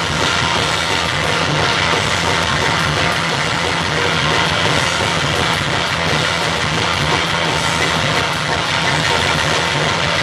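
Live rock band playing loud, a steady, dense wall of electric guitar and drums with a heavy low end.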